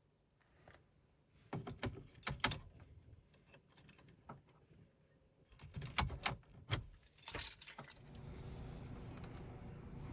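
Two bursts of metallic clinks and clicks, like a set of keys being handled, followed near the end by a steady low hum.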